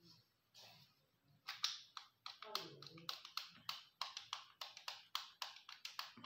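A rapid, irregular run of light, sharp clicks and taps from hands working a rusty pistol, about five a second, starting about a second and a half in.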